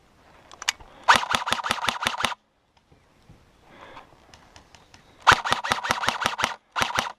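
Airsoft electric rifle firing in rapid full-auto bursts of sharp clicking shots, about eight shots a second: one burst about a second in, a longer one past the five-second mark and a short burst near the end.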